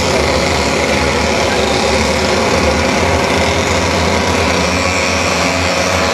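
A pack of 100cc two-stroke racing karts passing close by at speed, many high-revving engines buzzing over one another in a steady, loud drone.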